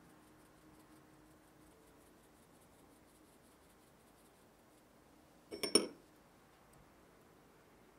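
Small metal mesh sieve shaken lightly over the tart, a faint quick patter as cocoa powder is dusted. About five and a half seconds in, a short loud clatter of ringing clinks as the sieve is set down in a ceramic bowl.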